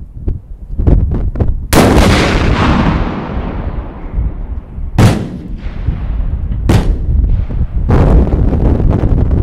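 6-inch (150 mm) aerial salute shells exploding. Four heavy booms come about two seconds in, twice around the middle, and again near the end, with a few smaller cracks before the first. The biggest booms trail off in a long rolling rumble.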